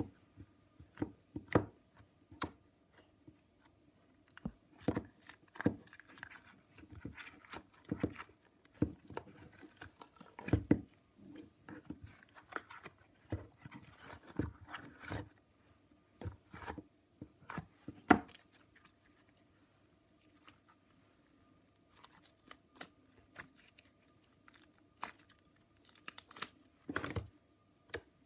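Slime being squished and stretched by hand in a plastic tub, giving irregular sticky pops and crackles, with a quieter pause about two-thirds of the way through.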